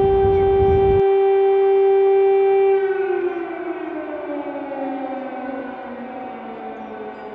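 Tsunami warning siren holding one steady tone, then winding down, its pitch falling and its sound fading over the last few seconds. A low rumble underneath cuts off about a second in.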